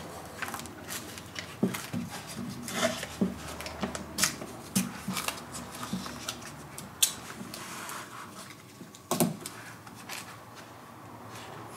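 Blue painter's tape being pulled off the roll and torn into strips, with irregular sharp rips, rustles and clicks as the strips are pressed down.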